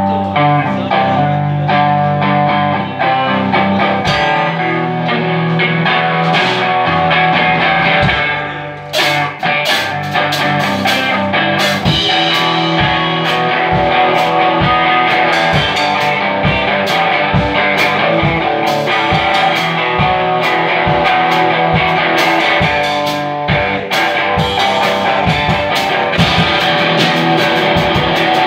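Live rock band led by an amplified electric guitar. Held guitar chords ring for the first several seconds, then a steady beat of sharp hits comes in about nine seconds in, and the band plays on at full volume.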